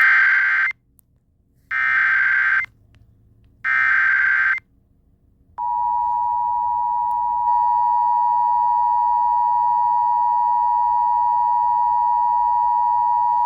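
Emergency Alert System tones: three short bursts of buzzing digital SAME header data, about a second each and two seconds apart. Then, about five and a half seconds in, the steady two-tone EAS attention signal begins and holds.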